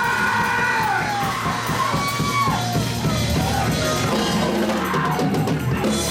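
Loud, lively church music with a drum kit, and voices singing and shouting over it in held, bending notes.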